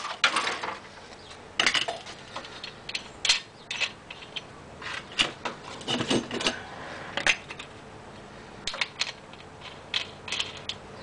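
Metal tools and parts being handled and rummaged through, giving irregular clinks, clicks and knocks with no motor running.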